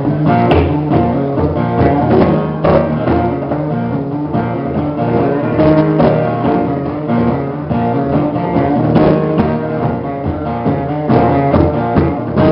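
Acoustic guitar strummed in rhythm together with conga drums played by hand, an instrumental passage of a live song.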